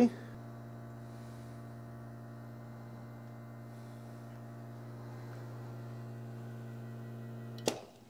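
La Marzocco Linea Micra's rotary pump humming steadily while it pushes brew water through the espresso puck during extraction. The hum cuts off with a short click near the end as the brew is stopped.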